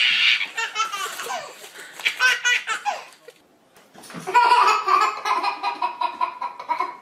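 A baby laughing in bursts of belly laughter, in two bouts with a short pause a little before halfway.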